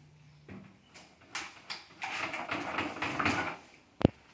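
Paint roller on an extension pole rolling and scraping with paint for about a second and a half, then a single sharp knock near the end.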